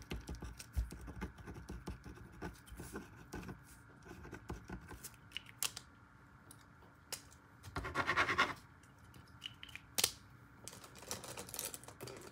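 Felt-tip marker scratching across lined notebook paper as a list is written, with small ticking taps, then louder scrapes about eight and eleven seconds in and a sharp click near ten seconds.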